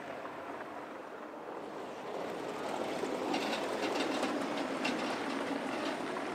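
A vehicle approaching and passing close, its noise building over a few seconds, with a rattle of irregular clicks at its loudest.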